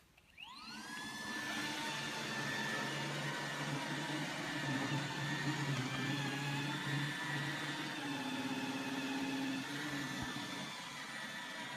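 iRobot Roomba 880 robot vacuum's suction motor and brushes spinning up with a rising whine about half a second in, then running steadily as it cleans carpet.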